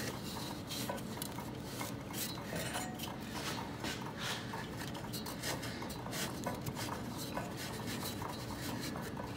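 Hands working the rubber V-drive belt off a zero-turn mower's pulleys: a run of small clicks, scrapes and rubbing noises.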